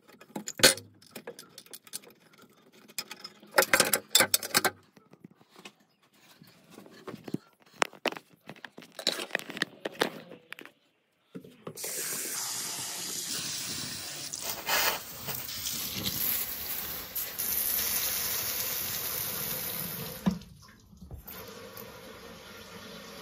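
Scattered metallic clicks and knocks of a wrench working the hose fitting on a chrome angle valve. About halfway through, a mixer tap starts running a steady stream into the basin. Near the end the flow drops and goes on quieter as a hand is pressed over the spout, forcing water back through the tap to flush out the blockage.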